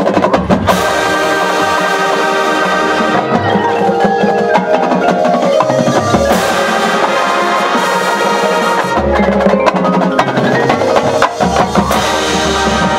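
High school marching band playing held chords with percussion, including mallet instruments from the front ensemble and sharp drum strikes; the low end gets heavier for a couple of seconds past the middle.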